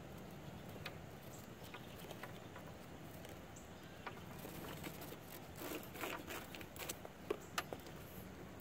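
Quiet open-air background with faint, scattered light taps and clicks, a few more of them a little past the middle.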